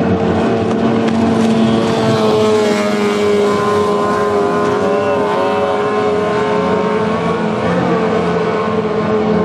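Racing outboard motor running flat out as a small race boat speeds past on the water. Its high engine note holds steady while its upper tones waver and bend in pitch around the middle of the pass.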